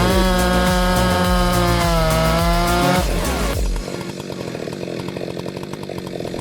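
Two-stroke chainsaw running at high revs as it cuts through a log, its pitch sagging briefly under load near the start and again about three seconds in, then cutting off at about three and a half seconds. Background music with a steady beat carries on after it.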